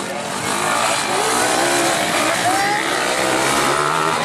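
250cc motocross bike engine revving hard under acceleration, its pitch rising and falling as the rider works the throttle and gears.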